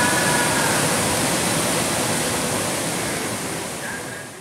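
Steady rush of river water flowing past through a choppy stretch of current, fading out over the last second or so.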